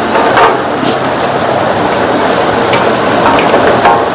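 Chili paste sizzling and bubbling in a wok as pieces of fish go in, with a few short clicks and scrapes of a metal spatula against the wok.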